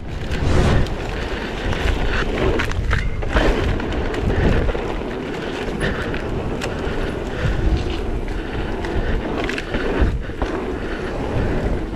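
Propain Rage 3 CF carbon downhill mountain bike descending rough trail: a steady noise of tyres on dirt, broken by frequent sharp knocks and rattles as the wheels and suspension hit bumps.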